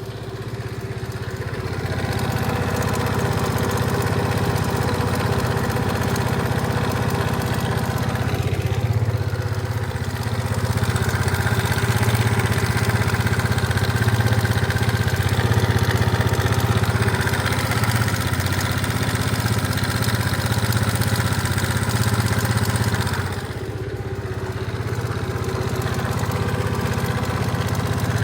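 Suzuki Address V50 scooter's single-cylinder engine running at a steady idle, recorded to show an abnormal engine noise. The engine speed dips briefly twice, about nine seconds in and again near the end.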